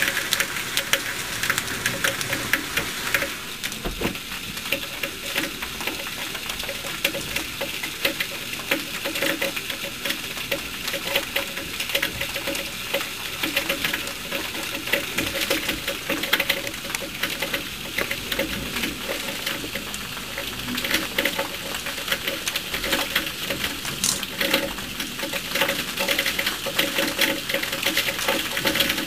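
Heavy thunderstorm rain pattering densely, a continuous rapid ticking of many drops.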